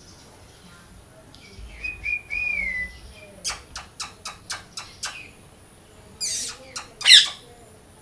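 Green parakeet calling: a short warbling whistle, then a quick run of about seven sharp chirps, then harsh screeches, the last and loudest near the end.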